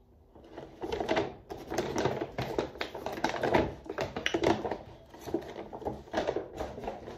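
Crinkling and rustling of a goodie bag and its packaged contents being handled and opened, a dense run of small crackles.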